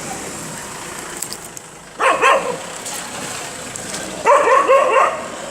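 Puppy yipping: one short yelp about two seconds in, then a quick run of several high yips a little past the middle.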